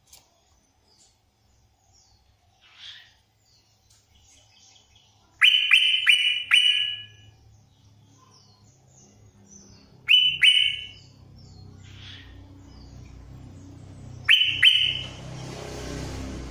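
Yellow-vented bulbul (trucuk) singing: soft scattered chirps, then three groups of loud, sharp notes (four about five seconds in, two near ten seconds, two near fourteen seconds). A low hum comes in after about seven seconds, and a rushing hiss near the end.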